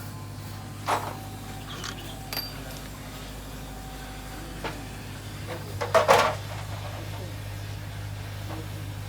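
A few sharp knocks and clinks, the loudest a short cluster about six seconds in, over a steady low hum.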